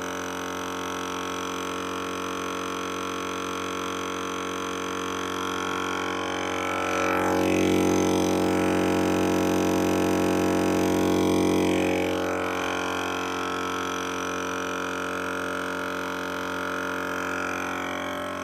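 EZ Flate M.O.A.B. twin-cylinder portable air compressor running steadily under load as it inflates the truck's tires, a constant droning hum that gets louder for several seconds in the middle.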